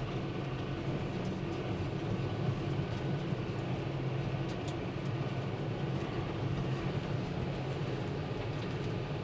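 Vehicle engine running steadily at an even speed, a constant low hum.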